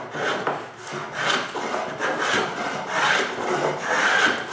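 A hand tool stroked back and forth over wood, making rasping strokes about once a second.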